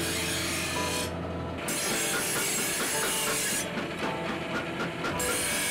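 Steel knife blank ground against a spinning grinding wheel: a steady, harsh grinding hiss. The hiss thins twice, briefly about a second in and for over a second near the end.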